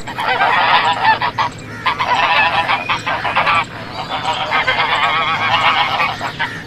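A flock of waterfowl calling all at once: a dense, overlapping chorus of honks and quacks with no break.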